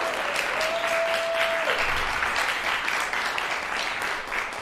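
Audience applauding in a concert hall, the clapping slowly dying down.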